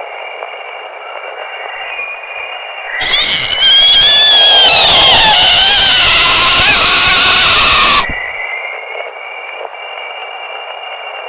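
Steady static hiss, broken about three seconds in by a loud wailing sound of several wavering, gliding tones that starts abruptly, lasts about five seconds and cuts off sharply back to the hiss.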